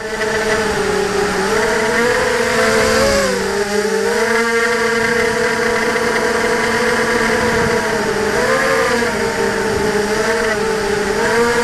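ZMR250 racing quadcopter's brushless motors and KingKong 5040 propellers whining in flight, picked up by the onboard camera. The pitch rises and falls with the throttle, with clear swings about three seconds in, again near eight and a half seconds and near ten and a half seconds.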